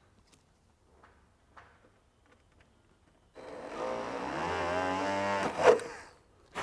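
Cordless Dremel with a diamond cutting bit running for about three seconds, drilling a screw hole through the fiberglass cowl into the mounting lug, with a sharp knock near the end. Faint clicks come before it.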